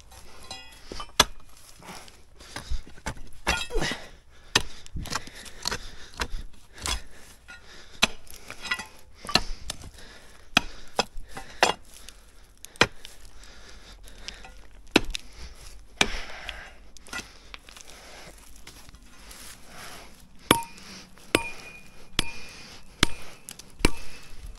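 Repeated strikes of a hand tool on stone and earth, unevenly spaced at about one or two a second. Several blows toward the end give a short metallic ring.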